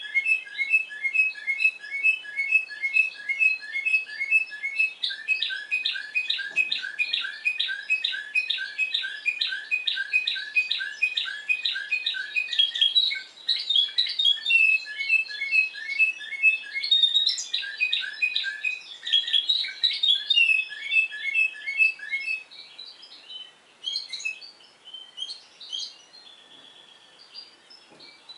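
Timbrado Español canary, discontinuous variety, singing a long song of quickly repeated notes in runs that change from one phrase to the next. About 22 seconds in, the song thins to a few scattered, fainter notes.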